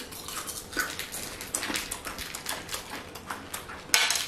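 Paper sweet wrappers crinkling and rustling in the hands as they are unwrapped: soft, irregular little crackles, with one louder crinkle near the end.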